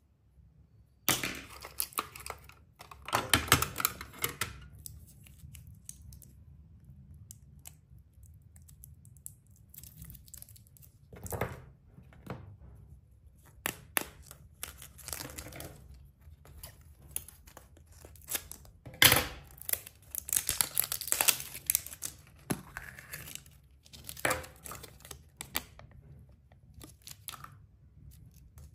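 Thin plastic packaging being crinkled and torn open by hand, mixed with sharp clicks of hard plastic toy parts and a plastic surprise egg being handled. The sound comes in irregular bursts with short quiet gaps. The loudest bursts come about a second in and again about two-thirds of the way through.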